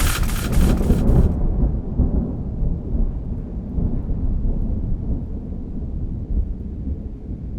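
Thunder: the end of a loud crack in the first second or so, then a long low rolling rumble that slowly fades.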